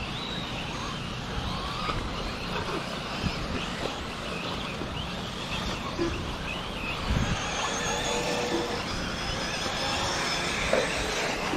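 Radio-controlled off-road buggies racing around a dirt track: thin, high-pitched motor whines rise and fall in pitch as the cars accelerate and brake, over a steady background noise. A brief low thump comes about seven seconds in.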